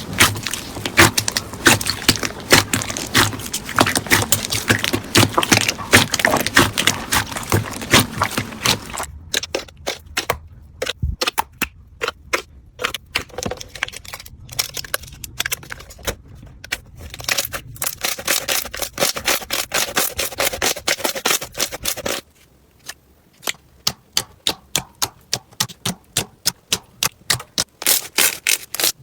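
Slime being squished and pressed by hand, making sticky clicks and crackles: dense crackling for the first several seconds, then sparser pops, and in the last several seconds a run of evenly spaced clicks, two to three a second.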